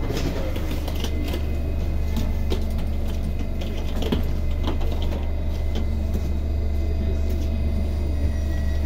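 Steady low hum of a stationary MP14 metro train's onboard equipment, heard from inside the car, with scattered footsteps, knocks and rolling suitcase wheels as passengers board through the open doors.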